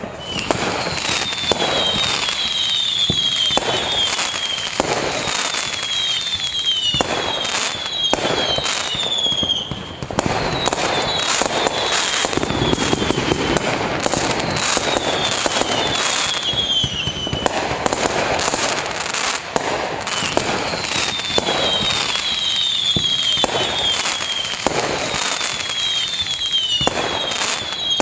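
Fireworks display: shells bursting in quick succession with sharp bangs and crackling, and repeated bunches of whistles that fall in pitch.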